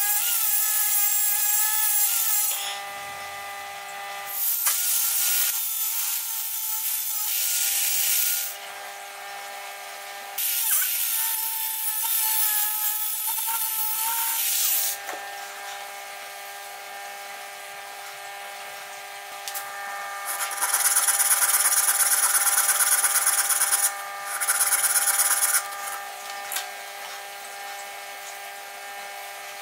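Proxxon long-neck angle grinder running with a steady whine, its sanding disc grinding into a wooden hull block in four loud passes. Between the passes only the motor's whine is heard.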